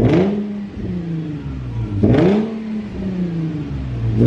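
Nissan 350Z's 3.5-litre V6 through an Invidia Gemini aftermarket exhaust, blipped by hand at standstill: quick revs about every two seconds, each one's pitch jumping up and then falling back to a steady idle.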